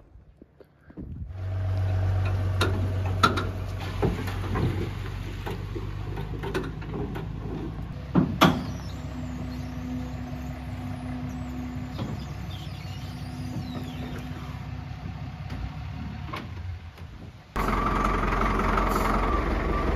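Diesel engine of a Caterpillar 930 wheel loader running steadily, with a few sharp knocks, starting about a second in. Near the end it becomes abruptly louder and closer, with a steady whine over the engine.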